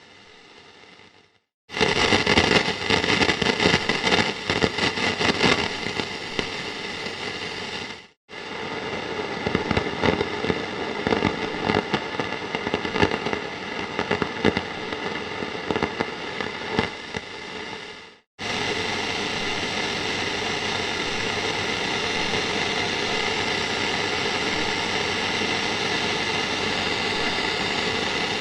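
Antique tube radio crackling with static, dense crackles over a steady hiss and faint whistling tones, in three separate takes broken by brief silences. The last take is a steadier, more even hiss with fewer crackles.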